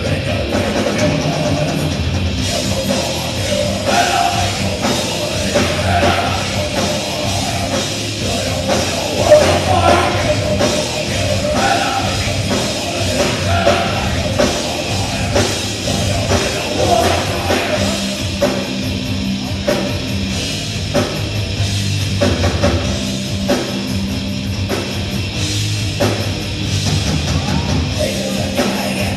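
Live metal band playing loud: electric guitars, bass and drum kit, with a singer's vocals through the first half.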